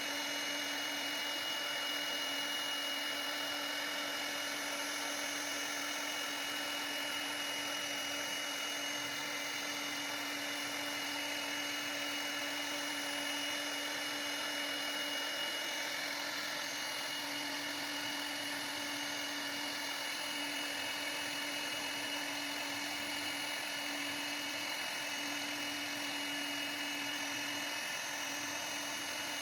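CNC router spindle running with a steady high-pitched whine, carving the workpiece.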